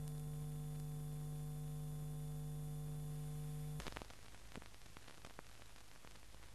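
Steady electrical buzz-hum with many overtones, cutting off abruptly a little under four seconds in, leaving faint hiss with scattered soft clicks, like the crackle of an old film soundtrack.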